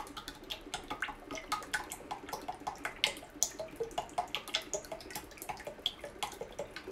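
Cooking oil pouring from a plastic bottle in a thin stream into a stainless steel pot of oil, making a continuous run of small, irregular splashes and drips.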